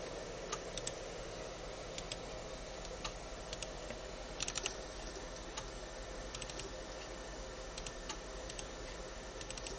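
Irregular computer-keyboard key clicks, a few clustered together about halfway through, over the steady hum of a computer's cooling fan.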